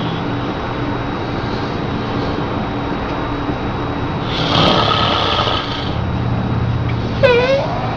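Steady low mechanical hum, with a louder noisy burst lasting over a second about four and a half seconds in, and a short high squeal with a wavering pitch near the end.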